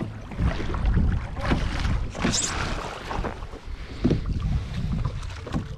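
Pedal-drive fishing kayak moving through open sea: water slapping irregularly against the plastic hull, with wind rumbling on the microphone.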